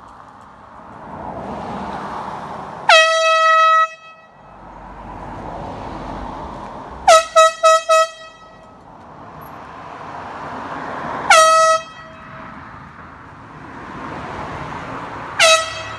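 Air horn blasting: a long blast about three seconds in, four quick toots around seven seconds, another blast near eleven seconds and a short one near the end, each a single high note. Between the blasts, the noise of passing vehicles swells and fades.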